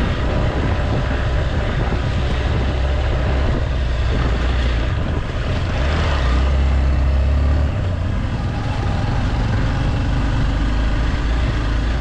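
Motorcycle running along a trail, a steady engine drone under heavy wind rumble on the microphone.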